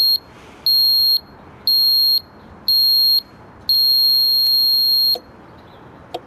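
Model rocket launch controller's warning buzzer beeping about once a second, then sounding one long steady tone that cuts off, warning that someone is trying to launch. A faint click follows near the end.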